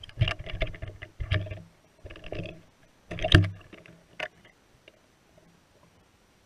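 Muffled clicks, knocks and rattles picked up by a GoPro in its underwater housing as the lowered camera rig sways and bumps, in several clusters over the first four seconds, the loudest about three seconds in.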